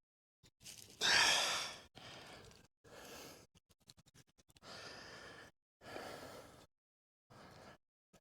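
A loud exhaled sigh about a second in, then a run of shorter rasping sounds separated by small clicks and taps.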